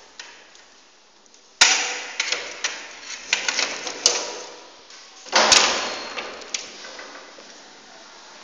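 Two sudden loud clattering knocks, the second about four seconds after the first, each trailing off in smaller rattles and clicks over a second or so.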